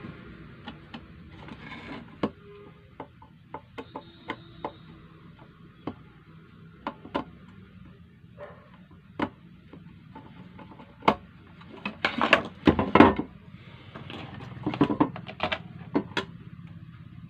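Scattered sharp clicks and knocks of a sewing machine's foot pedal being handled and put back together, with a quick run of rattling taps about twelve seconds in and another a couple of seconds later. No motor is heard running.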